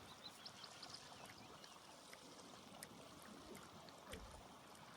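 Near silence: faint outdoor ambience, with a few soft high chirps in the first second and some scattered light clicks.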